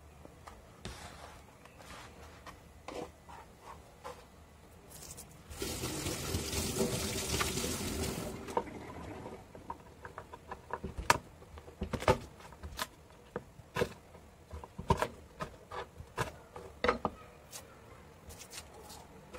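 Kitchen tap running for about three seconds, then a knife chopping on a wooden cutting board in irregular sharp knocks.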